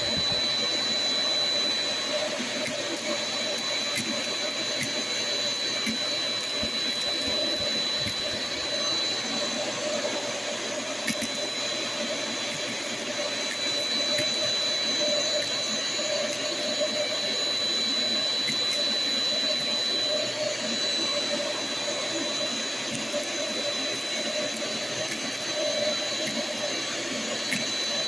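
Shop vac with a crevice tool running steadily, a constant high whine over its rushing airflow, with a few faint clicks.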